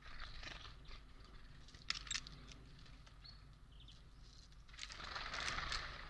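Eurasian jay foraging in a wicker basket of seed mix: seeds and husks rustling and crunching as it pecks, with a couple of sharp clicks about two seconds in and a longer rustle near the end.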